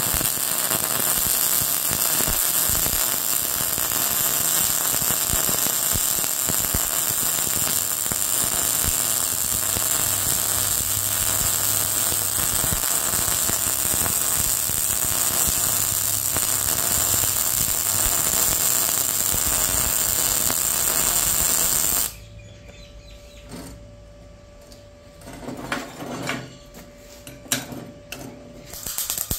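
Arccaptain MIG200 MIG welding arc at 170 amps with 0.9 mm wire and mixed shielding gas, running steadily for about twenty seconds, then stopping abruptly. After it stops there is a faint steady hum and a few knocks.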